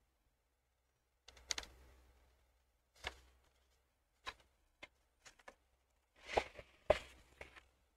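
Faint, irregular clicks and knocks, about a dozen in all, with a short rustle about six seconds in: handling noise at a desk close to the microphone.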